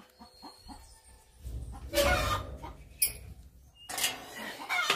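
Chickens clucking in a coop, broken by loud rustling noise bursts about two, three and four seconds in, with a low rumble under the first of them.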